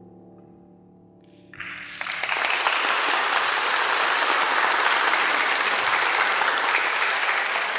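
The last chord of a grand piano dies away, then an audience bursts into applause about a second and a half in, quickly growing loud and holding steady.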